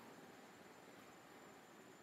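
Near silence: a faint, steady background hiss with a thin, high-pitched steady tone running under it.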